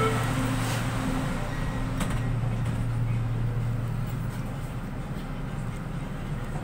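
Steady low hum inside a Manila LRT Line 2 light-rail car standing at a station platform. A few faint short beeps sound in the first second, and there is a single click about two seconds in.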